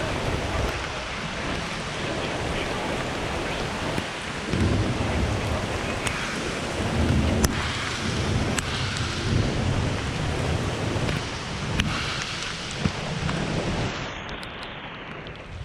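Steady heavy rain in a thunderstorm, with a few sharp ticks of drops striking close by and low rumbles swelling and fading underneath.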